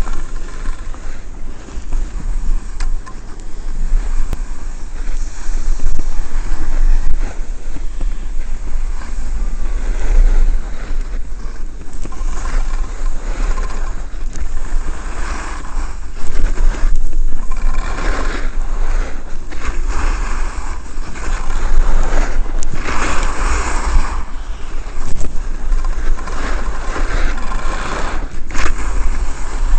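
Wind buffeting the microphone while skiing downhill, a loud steady rumble, with the hiss and scrape of skis on packed snow that swells several times as the skis turn.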